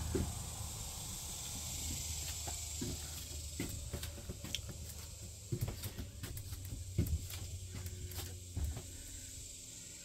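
Steady hiss and low hum, with scattered soft knocks and clicks of a handheld camera being carried and footsteps; the hum fades near the end.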